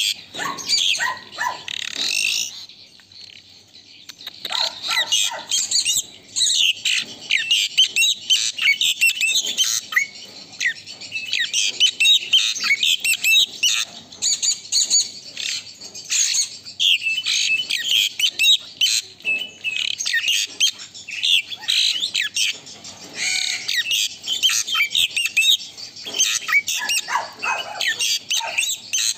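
Asian pied starling (jalak suren) singing a rapid, continuous chattering song of varied whistles, squeaks and harsh notes, with a brief pause a few seconds in.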